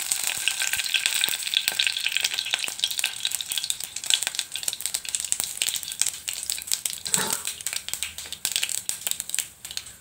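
Mustard seeds and two dried red chillies frying in hot coconut oil in a nonstick kadai: a dense sizzling crackle of seeds popping and spluttering, thinning out toward the end. This is the tempering stage, the seeds bursting in the hot oil.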